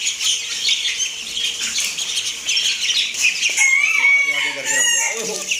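Ducklings and chicks peeping constantly in a dense high chatter while being fed grain. About three and a half seconds in, a chicken gives a louder drawn-out call lasting about a second and a half.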